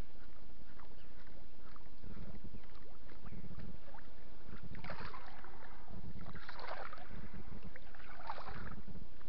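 Topwater muskie lure splashing and gurgling on the surface as it is walked back toward the boat, three splashes about a second and a half apart in the second half. A low thump repeats about once a second underneath.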